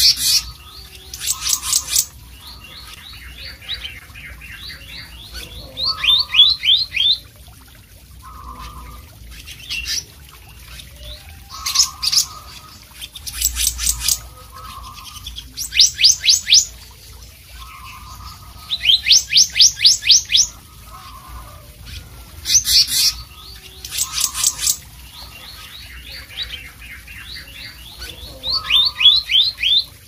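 Male black-naped monarch singing: loud phrases of rapid, evenly spaced high whistled notes, each phrase about a second long and repeated every second or two.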